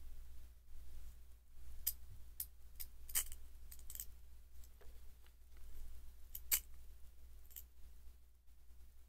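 Brass Peace-branded lighter being handled: its metal mechanism gives a string of small, sharp clicks and snaps at irregular spacing, loudest about three seconds in and again about six and a half seconds in.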